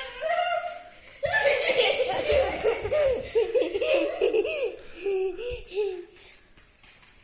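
Children laughing and giggling in high, bubbling bursts, starting about a second in and fading out near the end.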